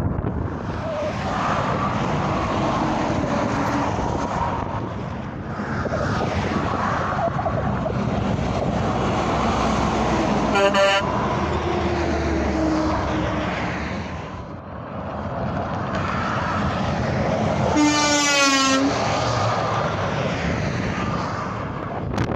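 Heavy trucks passing on a highway, their engine and tyre noise swelling and fading. A short air-horn toot sounds about ten seconds in, and a longer, louder air-horn blast of about a second comes near the end.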